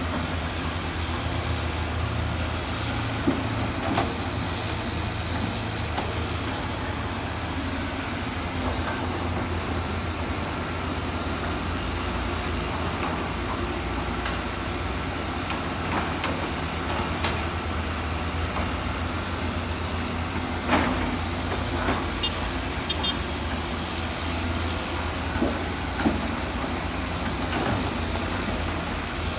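Heavy construction machinery running with a steady low diesel rumble, with occasional sharp clanks and knocks.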